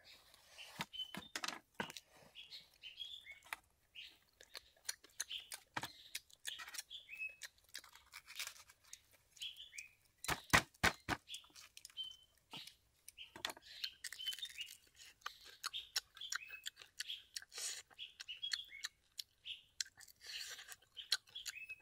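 Small birds chirping over and over, with a knife cutting and tapping on a wooden block, including a quick run of about five sharp knocks about halfway through. Chewing near the end.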